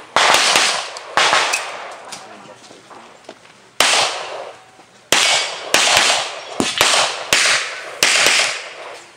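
Handgun shots fired in a practical pistol stage, about ten in irregular strings, some in quick pairs, each sharp crack followed by a long echoing fade.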